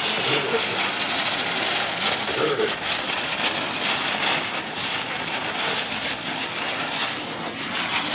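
A ground firework spraying sparks, with a steady hiss.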